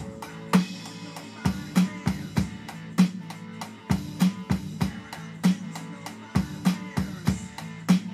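Drum kit played in a busy hard-rock drum improvisation: bass drum and snare hits several times a second, with cymbals over them.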